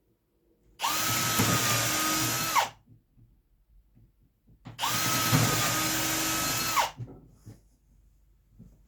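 Electric drill running in two steady bursts of about two seconds each, a few seconds apart, at a constant whining pitch that winds down as each burst stops.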